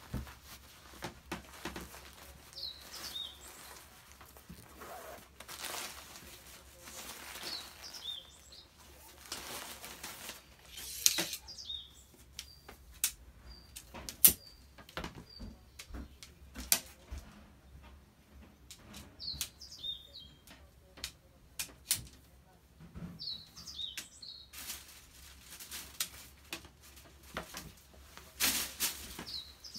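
A nylon dome tent being pitched: the fabric rustles and shakes out, and the shock-corded tent pole sections clack together with sharp clicks, loudest about 11 and 14 seconds in. Short bird chirps come now and then in the background.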